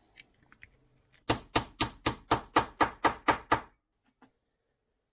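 About ten quick, evenly spaced hammer taps, roughly four a second, on a 7/8 socket set against the outer edge of a water pump seal kit, driving the seal into the pump housing of a Suzuki DRZ400.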